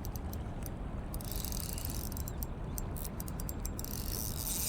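Spinning reel clicking in short irregular runs while a hooked fish is being fought, over a steady low background noise.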